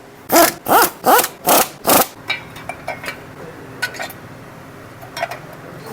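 Hand tool working the motorcycle's cam sprocket bolts: five quick rasping back-and-forth strokes, like a ratchet wrench being cranked, then a few light metallic clicks as the tool is repositioned.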